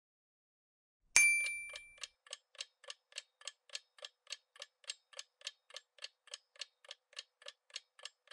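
Quiz countdown-timer sound effect: a single bell-like ding about a second in, fading over about a second, then a steady clock ticking at about four ticks a second.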